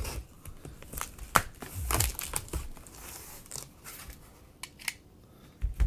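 Box cutter slitting the packing tape on a cardboard Priority Mail box: scratchy cuts and the crinkle of tape and cardboard being handled, with a sharp click about a second and a half in.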